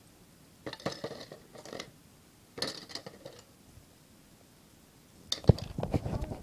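Clattering and rustling from objects being handled, in three bursts, the last one louder with a sharp knock about five and a half seconds in.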